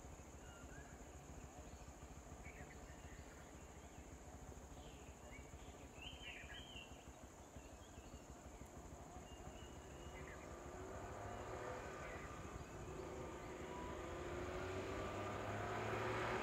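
A small car's engine approaching slowly, its hum growing steadily louder over the last several seconds. Underneath, a steady high insect drone, with a few short bird chirps in the first half.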